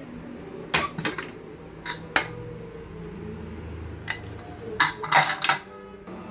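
Metal cookware clanking: a pressure cooker's lid and pot knocking and clinking in a string of sharp separate strikes, with a quick run of clanks about five seconds in.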